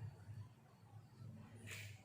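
A low steady hum, with one short scratchy stroke of a pen drawing a line about three-quarters of the way through.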